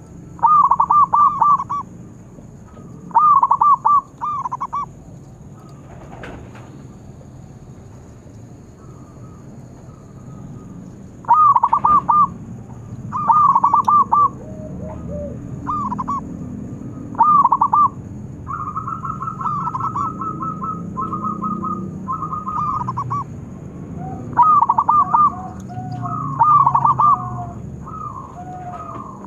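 Zebra doves (perkutut) cooing in short bursts of rapid, rolling notes, with a quieter gap of several seconds in the middle. Near the end a second, lower voice overlaps the calls.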